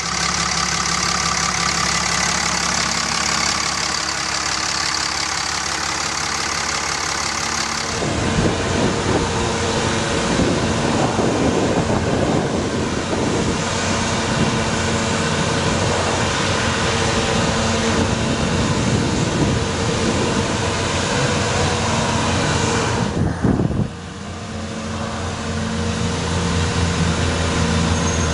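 Dodge Ram 5500 bucket truck's Cummins diesel engine running. It is heard close up under the open hood for the first several seconds, as a steady tone. After that it runs with a busier, noisier sound while the truck's aerial boom is raised.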